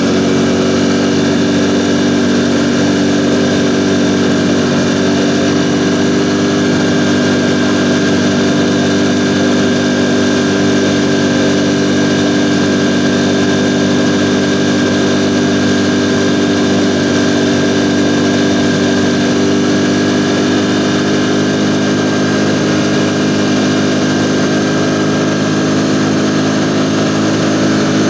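Ducati Panigale V4's V4 engine running steadily, its pitch holding nearly constant with only slight drifts and no revving up or down.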